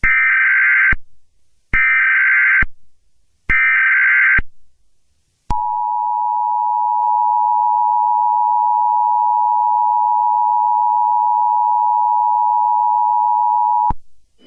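Emergency Alert System alert opening: three short bursts of warbling SAME digital header data, each just under a second with short gaps between, then the EAS two-tone attention signal held steadily for about eight seconds before cutting off suddenly. The header and tone announce an emergency alert about to be read.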